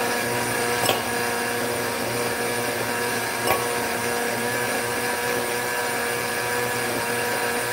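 Single-serve personal blender running steadily at one speed, blending a green smoothie. Two short sharp clicks come about one second and three and a half seconds in.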